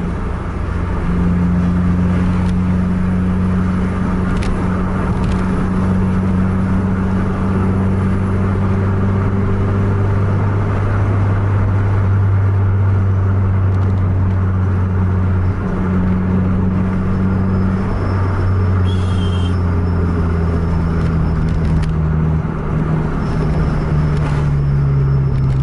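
Vehicle engine droning at a steady road speed with tyre and road noise, heard from inside the cabin. The engine note steps lower a few times near the end.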